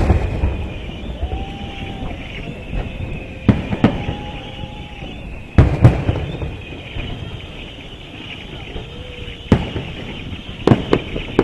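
Aerial firework shells bursting: a loud bang at the start, then single booms every two to four seconds, each trailing off in an echo, and a quick run of sharper cracks near the end.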